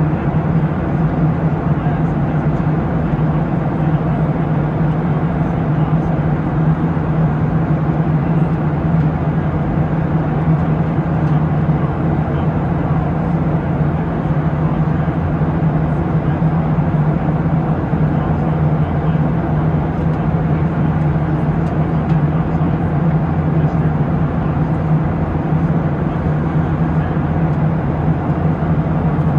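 Steady cabin noise of a Boeing 737-700 in cruise flight: the constant drone of its CFM56-7B turbofan engines, a steady low hum under the rush of air along the fuselage, unchanging throughout.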